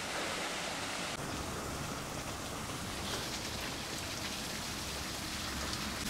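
Small waterfall and creek water splashing into a rock pool, a steady, even rush of water.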